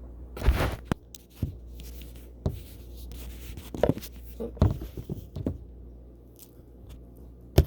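LEGO pieces and bags being handled on a table: scattered plastic clicks, knocks and rustling, with a sharper knock near the end.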